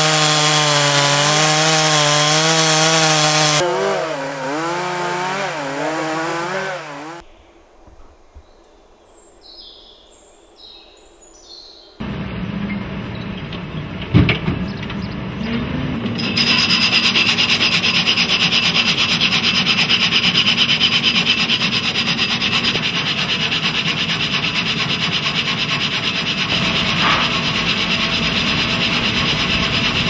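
Two-stroke chainsaw running at full revs as it cuts through a log; its pitch wavers and drops under load before it stops about seven seconds in. After a quieter stretch, a sawmill band saw runs steadily from about 16 seconds, cutting through the log with a steady high whine.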